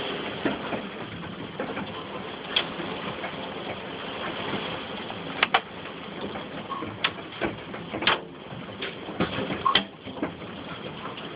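Golf-ball-sized hailstones pelting a house: a steady hiss of falling hail with about ten sharp cracks of single stones striking at irregular moments.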